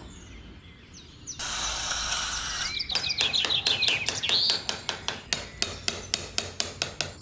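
Small hammer tapping on wood in quick, even strokes, about four a second, starting near the middle, with birds chirping behind it. Just before the tapping, a short rush of noise.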